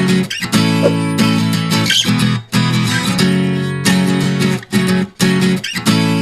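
Background music: guitar strumming chords in a steady rhythm.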